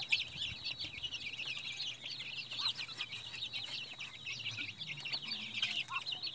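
A flock of young chicks and ducklings peeping constantly as they feed, with many high cheeps overlapping in a dense chorus. A few lower calls stand out now and then.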